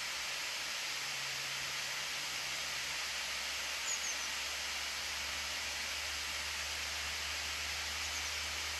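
A steady, even rushing hiss, with two faint short chirps about four and eight seconds in.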